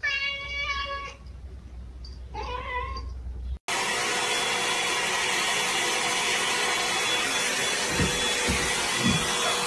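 A cat meows twice. Then a handheld hot-air brush hair dryer runs loudly and steadily, a constant rushing blow with a thin steady whine.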